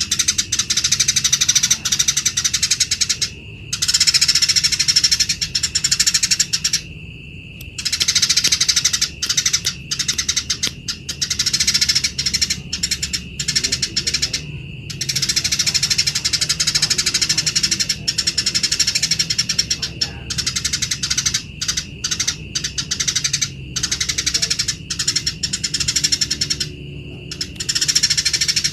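Eurasian tree sparrows chattering harshly and rapidly, the rasping calls of sparrows fighting. The chatter comes in long runs broken by a few brief pauses.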